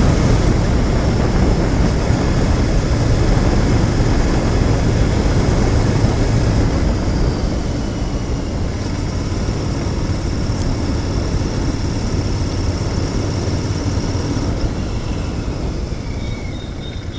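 Royal Enfield Continental GT 650's 648 cc parallel-twin engine running through its stock exhaust while the bike is ridden, with rushing wind noise. The sound gets gradually quieter over the second half.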